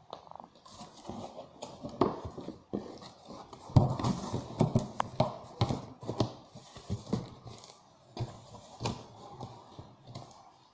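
Corrugated cardboard shipping box being opened by hand: flaps and cardboard packing inserts scraping, rustling and knocking in an irregular series.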